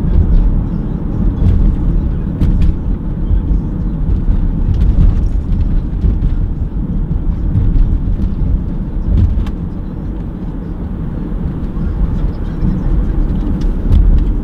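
Cabin noise of a BMW car driving over a bumpy road: a steady low rumble of engine and tyres that swells and eases, with a few light knocks and rattles scattered through it.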